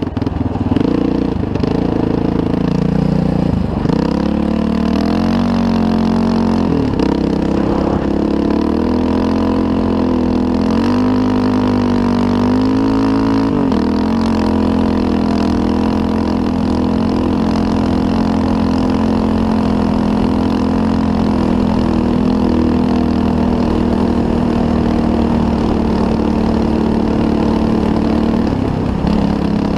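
Engine of a small off-road vehicle under way. Its pitch rises and falls with the throttle for the first dozen seconds or so, then holds steady at a cruising speed.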